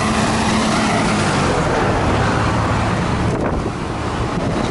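Road traffic running close by: steady noise of car tyres and engines, with a low engine hum under it.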